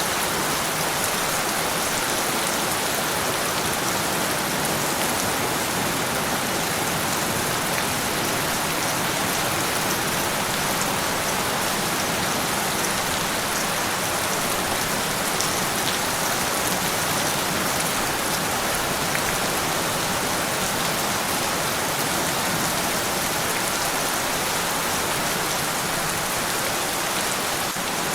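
Steady rain falling on a surface, an even hiss of drops with no thunder.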